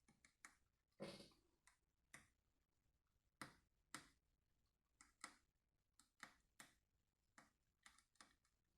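Small repair tools being handled, making faint, irregular light clicks and taps, well over a dozen of them.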